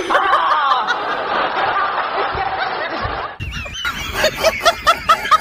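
Laughter: a dense burst of laughing for about three seconds, then, after a brief break, a quick string of high-pitched snickers, several a second.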